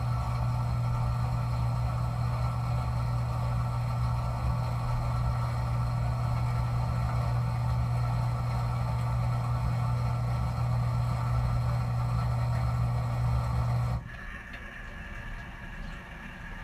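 Dishwasher running with a loud steady motor hum, which cuts off abruptly near the end, leaving a much quieter background with a faint high whine.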